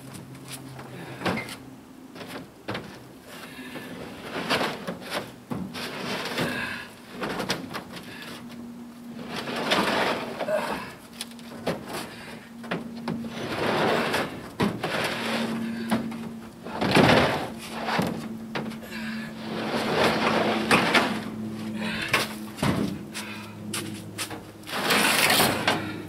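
Cement blocks scraping and knocking against a pickup truck bed as they are slid out for unloading: repeated rough scrapes a second or two long, with sharp knocks between them.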